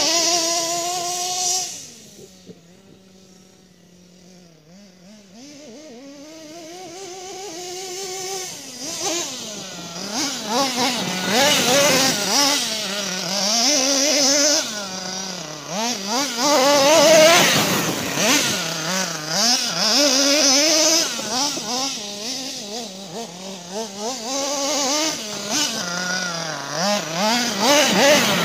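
Kyosho RC monster truck's small engine revving up and down over and over as the truck drives. It drops back to a low, quieter, steady running for a few seconds near the start before picking up again.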